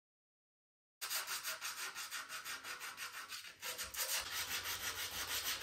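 Sandpaper rubbed back and forth by hand over the filled cracks in a plastic car bumper, in quick even strokes of about five or six a second, after a second of silence. The strokes pause briefly about three and a half seconds in.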